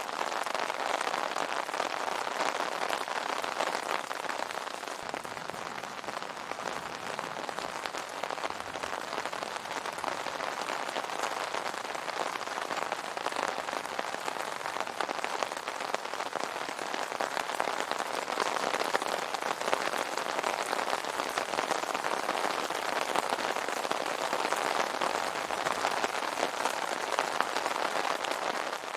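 Steady rain pattering on a tent's fabric, a dense even patter of drops.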